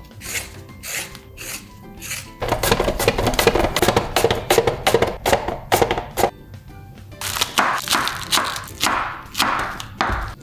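A carrot being run quickly back and forth over the julienne blade of a plastic mandoline slicer, in two runs of rapid scraping strokes, over background music. A knife knocks once on a wooden board near the end.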